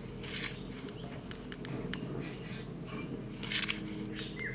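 A plastic measuring spoon scooping granulated sugar from a clay bowl and tipping it into a glass: a few short rustling scrapes, the loudest about three and a half seconds in, over a steady low background noise.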